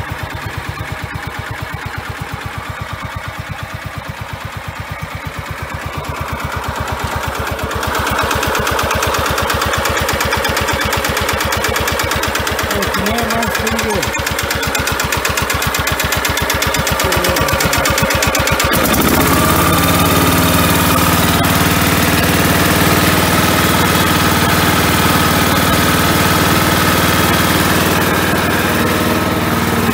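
16 hp Kohler Command engine of a 1997 Simplicity Coronet riding mower running just after a cold start. At first it runs with a rapid, even pulsing beat. It gets louder about eight seconds in, and about nineteen seconds in it settles into a steadier, smoother note.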